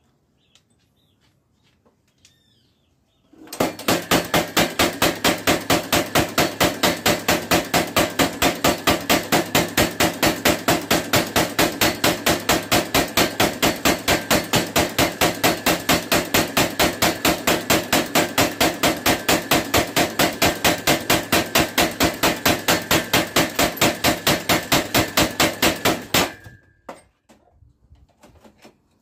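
Power hammer pounding a heated steel bearing race held in tongs, drawing it out into a knife blank: fast, even blows, roughly four a second, starting about three seconds in and stopping a few seconds before the end.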